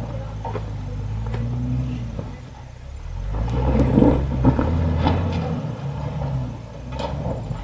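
Jeep engine revving up and down in waves as it crawls up a steep, rocky dirt slope, loudest about halfway through while its tires spin and spray dirt, with a few sharp knocks as the wheels climb a rock ledge.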